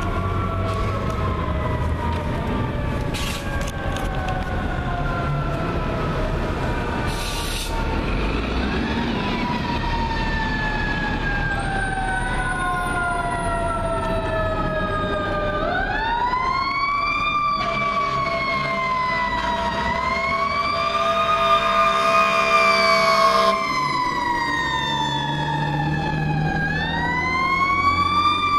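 Fire apparatus Federal Q mechanical siren winding up and then coasting down in long, slow falling wails, rewound several times. An air horn gives a steady blast about two-thirds of the way through.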